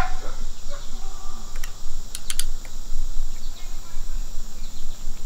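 Small clicks and taps of crossbow parts being handled and fitted, with a quick cluster of sharp clicks about two seconds in, over steady cricket chirring.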